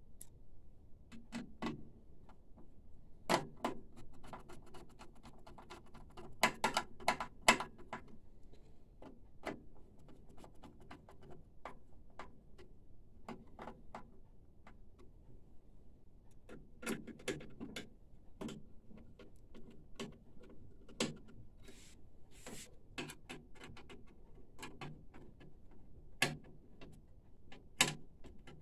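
Hand work on a printer chassis, with a screwdriver and metal and plastic parts handled as they are fitted back in. Scattered clicks and light knocks come at irregular times, with louder ones in quick clusters about three and seven seconds in and again near the end, over a faint steady low hum.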